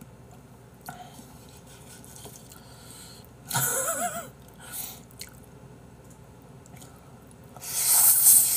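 A person eating jjapaghetti with chopsticks: a short wavering vocal sound about halfway through, then a loud slurp of black-bean noodles lasting about a second and a half near the end.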